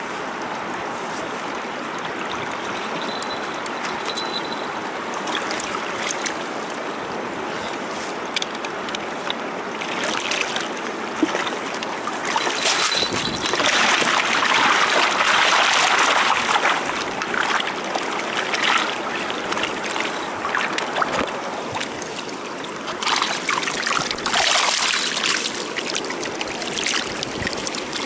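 Shallow river water flowing steadily past a microphone at the surface, with louder splashing and sloshing about halfway through and again later as a fishing net is dipped and worked in the water.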